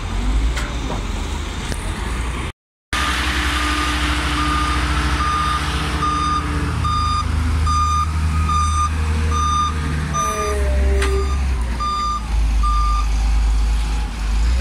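Reversing alarm of a heavy vehicle beeping about twice a second over the low rumble of a diesel engine. The beeping starts a few seconds in and stops near the end.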